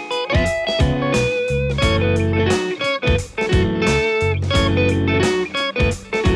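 Background music: an electric guitar tune with a steady beat.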